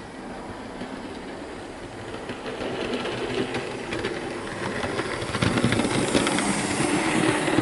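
Hornby J36 OO gauge model steam locomotive and tender running on DC with no sound decoder, so only its motor and wheels are heard rattling over the track. It gets louder as it comes close, from about five and a half seconds in.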